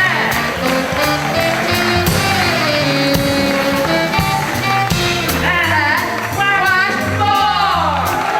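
Live band music with steady bass notes and cymbal ticks under a singing voice; near the end the voice swoops down in pitch.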